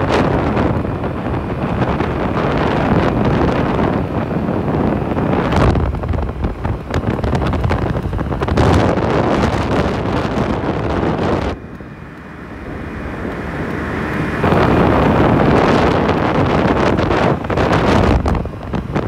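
Heavy wind buffeting the microphone on a Yamaha BWS (Zuma) 50cc scooter running at its top speed of about 63 km/h, with the scooter's running noise underneath. The wind eases for a few seconds about halfway through, then comes back as loud.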